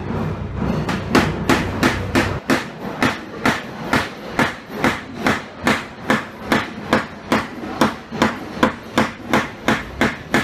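Rapid, evenly spaced tapping on a car's sheet-metal fender, just under three sharp taps a second, as a dent is worked out in paintless dent repair.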